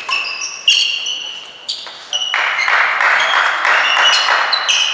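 Badminton players' court shoes squeaking sharply on the sports-hall floor, with a racket smack on the shuttlecock about a second in. About halfway through, a burst of applause rises and runs for about two seconds under more squeaks.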